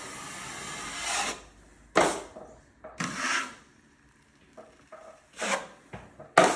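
Drywall knife scraping setting-type joint compound across a ceiling crack: one long stroke at the start, then several shorter strokes with pauses between.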